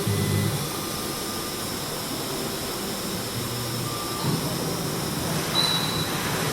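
CNC router running with a steady whirring machine noise, with short low hums and a brief high whine coming and going over it.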